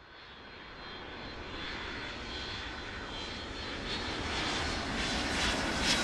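A rock band's drums, cymbals and distorted guitars in a noisy build-up without a beat, fading in from silence and swelling steadily louder.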